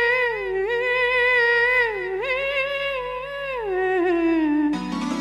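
Wordless high-pitched humming in long, smoothly gliding held notes, the opening of a Tamil film song. The hummed line slides down, and an electronic keyboard comes in near the end.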